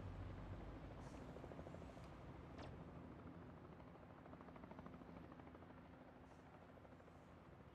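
Near silence: a faint low rumble fading away, with a single faint click about two and a half seconds in.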